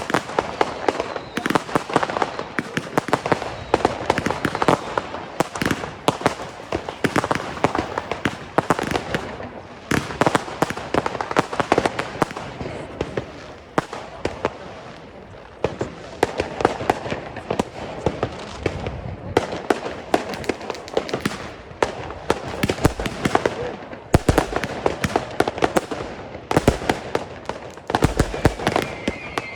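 Consumer fireworks cakes firing in quick succession: a dense, continuous run of sharp bangs and crackling as shells burst and crossette stars split, with a short lull about halfway through.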